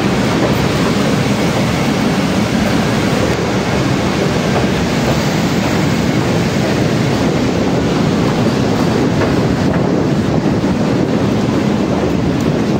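Passenger train running over a steel truss railway bridge, heard from an open door of the moving coach: a loud, steady rumble of wheels on rail and bridge girders.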